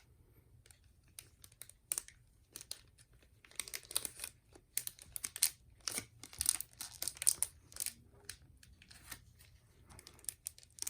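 Crinkling and crackling of something crinkly being handled close up, in irregular clusters that are busiest in the middle and thin out near the end.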